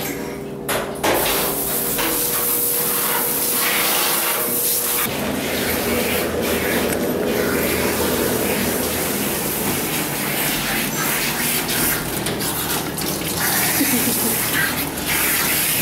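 Water spraying steadily from a dog-wash tub's hose sprayer.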